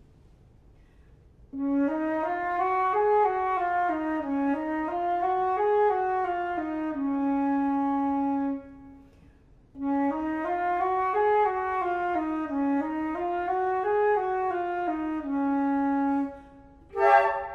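Solo concert flute playing five-note D-flat major scale exercises up and down, slurred, in two phrases that each end on a held low note. A short loud burst of sound comes near the end.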